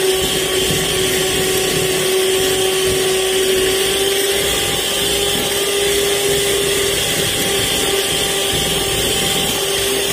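Electric hand mixer running steadily, its beaters whipping cream, with a constant motor whine.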